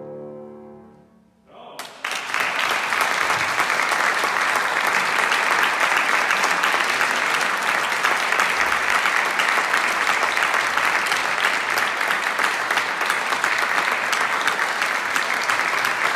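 The last note of a piano-and-bassoon piece fades away, and about two seconds in the audience breaks into steady applause in a reverberant concert hall.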